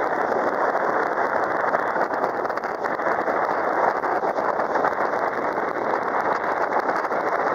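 Small sightseeing boat under way on a river: a steady, even rushing noise of the boat moving through the water, with no change across the few seconds.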